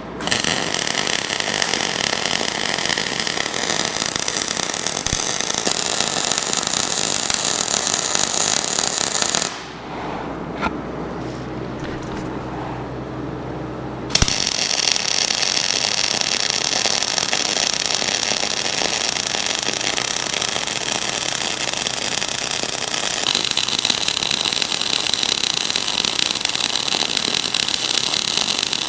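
Wire-feed (MIG) welding arc crackling steadily as weld is laid on to build up a worn steel rerailing frog. The arc stops for about five seconds partway through, leaving a faint low hum, then strikes again and runs on.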